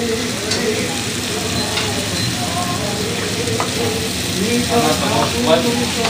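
Mixed vegetables sizzling in an oiled frying pan as a wooden spoon stirs and scrapes through them, with a few light clicks of the spoon against the pan.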